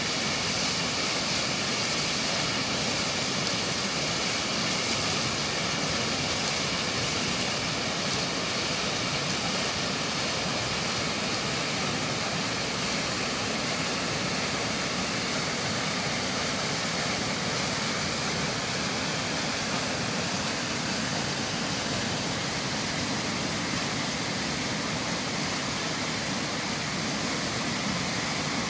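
Mountain stream pouring down small rocky cascades: a steady rush of falling, churning white water.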